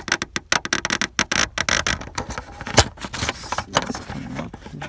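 Irregular plastic clicks and rattles as a Toyota Sienna power outlet is pried out of its panel housing, busiest in the first two seconds, with one louder click a little before three seconds in.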